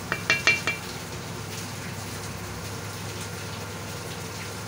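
Pot of red lentils and chicken coming to the boil, a steady bubbling. In the first second come about four quick, ringing metal clinks of a utensil against the aluminium pot.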